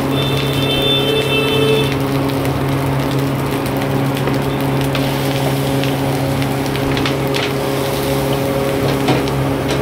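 Steady hum and roar of a gas wok stove running at full flame, with rice and Schezwan sauce sizzling in a hot iron wok. A few light clicks come near the end.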